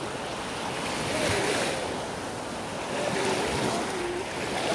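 Small waves washing up on a sandy beach. The surf swells and fades twice, with faint voices in the background.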